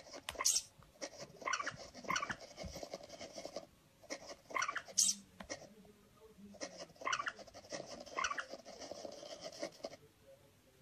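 Short bursts of sound effects from a cat game app on a tablet, about one every second or two, while a kitten paws at the screen.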